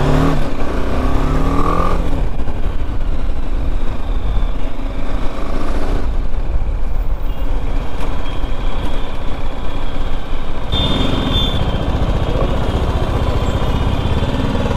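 BMW G 310 GS's single-cylinder engine running as the bike is ridden, mixed with heavy wind rush on the helmet microphone.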